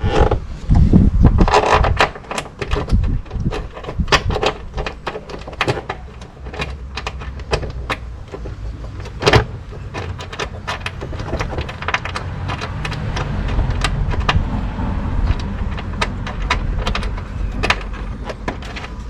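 Air cleaner housing being fitted back on a 2012 Toyota Tacoma by hand: an irregular run of clicks and knocks, with a louder knock about nine seconds in. A low steady hum builds in the second half.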